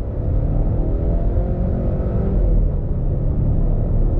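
2023 Volvo XC90 B6's 2.0-litre turbo-petrol four-cylinder engine running steadily, its pitch sagging slightly and then holding.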